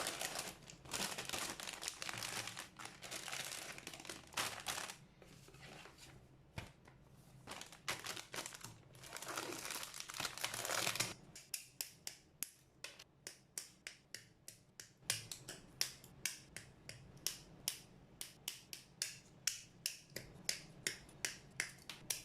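Hand work on a plastic model kit. For about the first half there is a busy plastic rustling and crinkling. Then a long run of sharp plastic clicks follows, about two a second.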